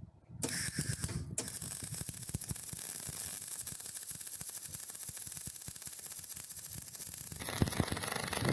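Electric arc welding on a steel bar. The arc strikes about half a second in and crackles steadily, growing louder near the end.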